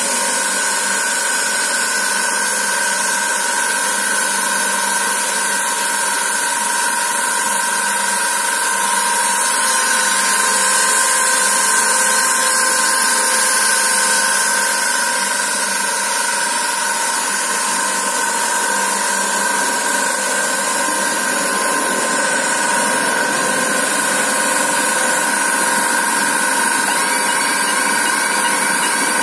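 Thread rolling machine running steadily as its two rolling dies form a thread on a steel rod: a continuous mechanical drone with two steady whining tones over a hiss, swelling slightly a third of the way in.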